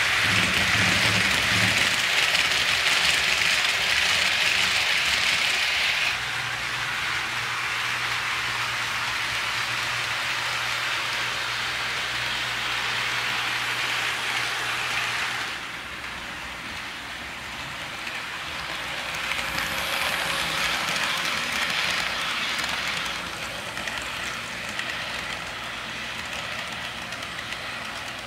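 HO scale model trains running on sectional track: a steady hiss of metal wheels rolling on the rails over a low electric-motor hum. The level steps down after about six seconds and again at about fifteen.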